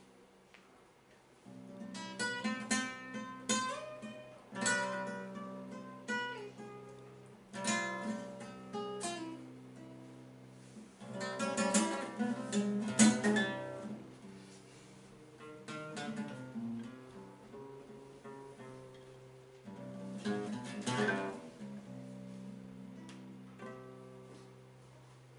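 Acoustic guitar played solo: strummed chords and plucked notes in short phrases with pauses between them, starting about a second and a half in.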